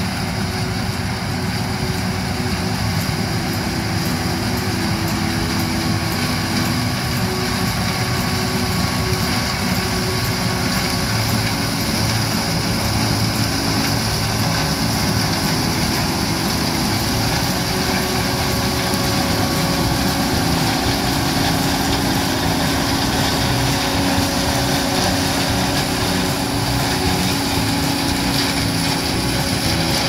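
John Deere 9600 combine harvesting corn: its diesel engine and threshing machinery running steadily at working speed, getting a little louder as it draws nearer.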